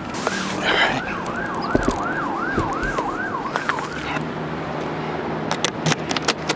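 Emergency vehicle siren in a fast yelp, a falling sweep repeating about two and a half times a second for some three and a half seconds before it stops. A few sharp clicks near the end.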